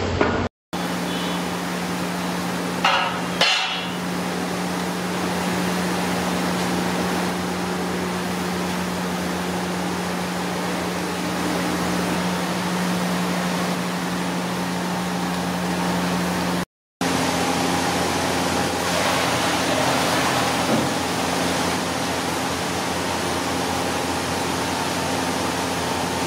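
Steady low hum and hiss, with two sharp metallic clanks about three seconds in from a long ladle knocking against a large aluminium cooking pot.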